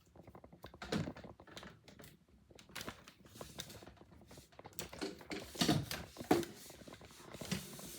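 Irregular clicks, knocks and clatter of small hard objects being handled and moved about, with a few louder knocks about a second in and again past the middle.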